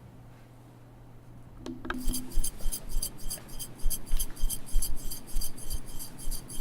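A low steady hum, a single click, then from about two seconds in a rapid, irregular run of bright clinking and jingling, like small glass or metal pieces knocking together.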